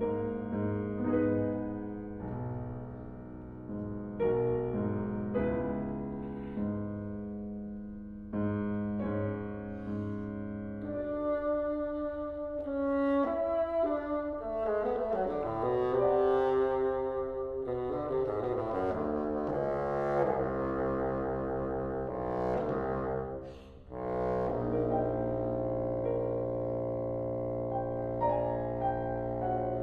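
Double bass and piano playing classical variations: piano chords for the first third, then the bowed bass line over the piano, with a short drop in level before a held passage near the end.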